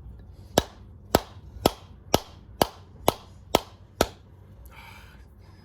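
Eight sharp hammer blows, about two a second, struck on the stuck headstock spindle of a 1981 Craftsman (Sherline-made) 3-inch micro lathe to drive it out of its bearings without a press.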